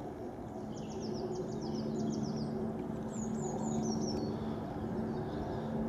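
A bird gives two quick runs of short, high, downward-sliding chirps over the steady low drone of a Nissan 4x4 engine as the vehicle drives up a grass field.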